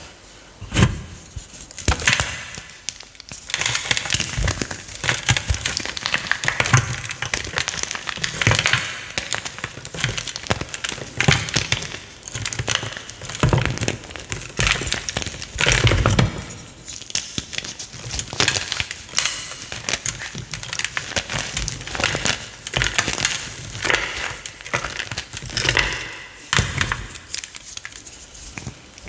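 Crunchy chalk being crushed and crumbled, a steady crackle of small crunches with louder cracks every second or two.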